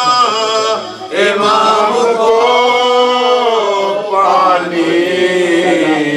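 A man's voice chanting a mourning recitation in long held notes that slide and waver, with a short break about a second in.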